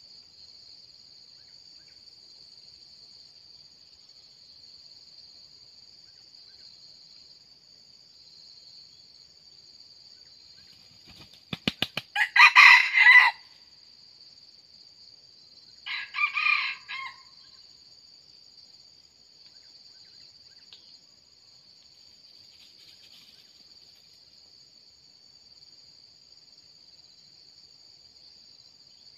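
Red junglefowl rooster beating its wings in a quick run of claps about eleven seconds in, then crowing loudly. A shorter second call follows a few seconds later.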